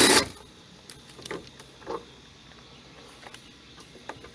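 Cordless impact with a 7 mm socket finishing a short run on a cab fastener, cutting off a moment in, followed by a few light clicks and taps as the small parts and tool are handled.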